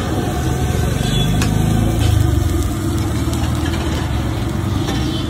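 A motor vehicle engine running close by, its pitch rising and falling in the first couple of seconds, over a steady low rumble.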